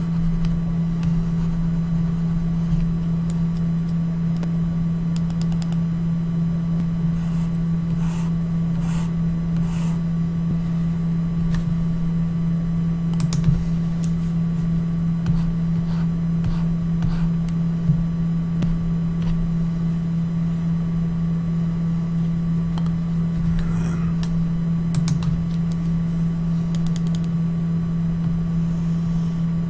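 Steady low electrical hum with a fainter high whine over it, from the recording setup. Scattered soft clicks run through it, typical of a computer mouse being clicked while editing.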